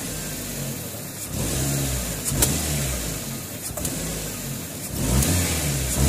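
Toyota 4A-FE four-cylinder engine running and being revved up and back down twice, about a second in and near the end, during a fuel pressure regulator check with the regulator's vacuum line pulled and plugged.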